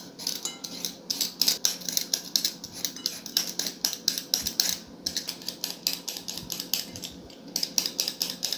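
Metal swivel peeler scraping the skin off a russet potato in quick repeated strokes, a few a second, with short pauses between runs.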